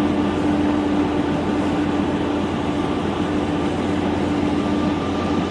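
Steady drone of a ship's engine running, a constant hum over an even rushing noise.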